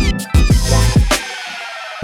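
Electronic intro music with heavy bass beats, then from about half a second in a long chord that slides down in pitch.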